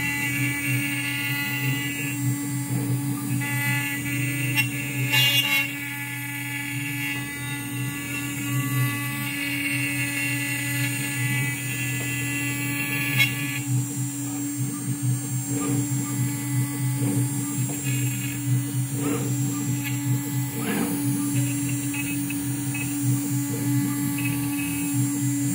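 CNC router pocketing a wooden board: the spindle runs with a steady hum and whine as the bit is driven through the cut. A higher whine drops out about halfway through, and there are a few brief knocks.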